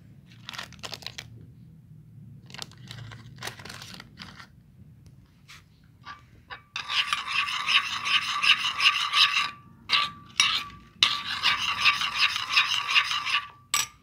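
A metal spoon stirring and scraping baby-cereal paste in a ceramic bowl, in two brisk bursts of a few seconds each in the second half, the bowl ringing steadily under the rapid scraping. Lighter scattered rustles and taps come before.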